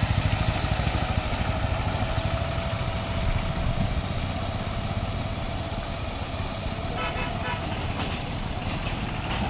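A motorcycle engine chugs close by and fades as the bike rides off through shallow floodwater, leaving a low rumble of traffic. A thin, long, steady tone sounds underneath for most of the time.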